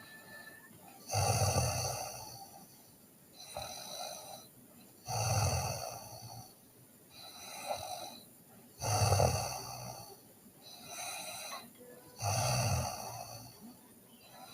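A sleeping girl snoring: four loud snores, about one every three and a half seconds, each followed by a softer breath between them.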